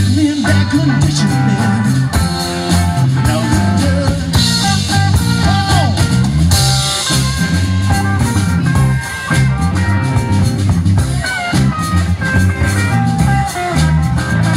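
Live band playing a blues-rock song on electric guitar, bass guitar and drum kit, amplified through PA speakers, with the lead guitar bending notes.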